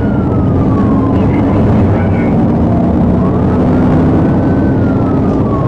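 Police siren on its wail setting: a slow rise and fall in pitch, about one cycle every four seconds. Under it is loud engine and road noise from a patrol car speeding up at highway speed.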